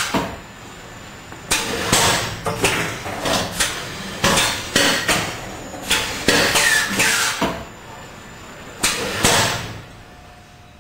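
Automatic rolling and cutting machine for tubular bandages running through its cycle: its air-driven cutting and clamping head clacks sharply with hisses of air in four bursts about two and a half seconds apart. The machine falls quieter near the end.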